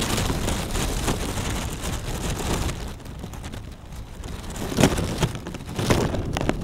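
Wind blowing across an outdoor microphone, a steady rush of noise, with two sharp knocks in the last two seconds.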